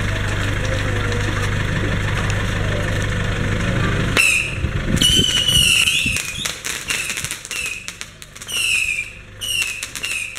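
Small New Year's firecrackers going off in a street: a steady low hum, then from about four seconds in a run of sharp pops mixed with repeated short, high squeals that dip in pitch.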